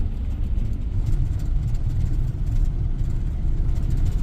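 Bus engine and road rumble heard from inside the passenger cabin, a steady deep rumble.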